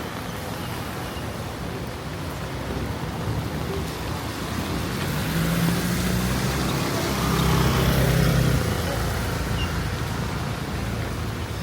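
Steady rain hiss with a motor vehicle passing by: its engine hum grows louder to a peak a little past the middle and then fades away.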